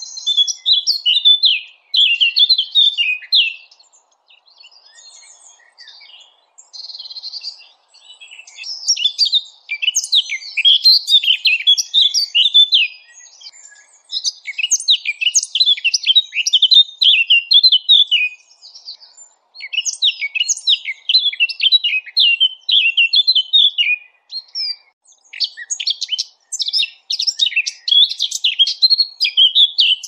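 Small songbirds singing fast, high chattering phrases in bouts of a few seconds, with short pauses between them. This is a 'masteran' song-tutor recording of small birds, played to caged songbirds for them to copy.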